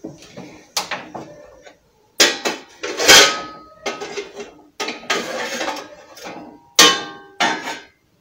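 Kitchen pots and dishes being handled on a counter: a string of sharp metal knocks and clatters, the loudest about three seconds in, leaving a short ring.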